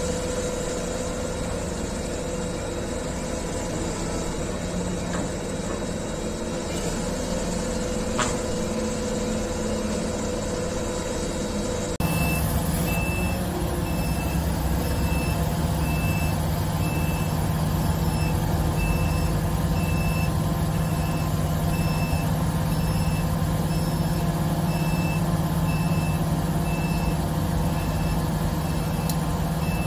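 XCMG QY25K5A truck crane's diesel engine running steadily. About twelve seconds in the sound changes abruptly, and from then on a high warning beeper sounds about once a second over the engine.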